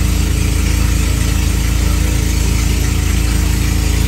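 An engine running steadily, a loud low rumble with an even pulse.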